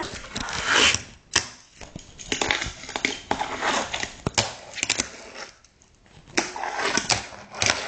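Irregular clicks, knocks and brief scrapes from the phone being handled and moved about, with small hard objects knocking, and a quieter spell a little before the end.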